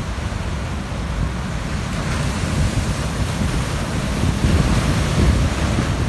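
Heavy ocean surf crashing and foaming over shoreline rocks, growing louder in the second half, with wind buffeting the microphone.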